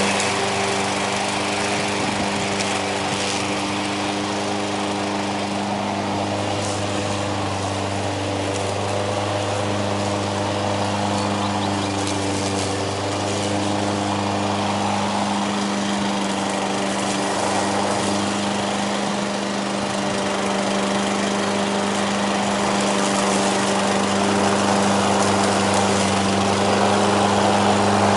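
Petrol engine of an MTD 53SPKV HW Advance self-propelled lawn mower running steadily in a mowing test after repair. It runs evenly, without misfiring.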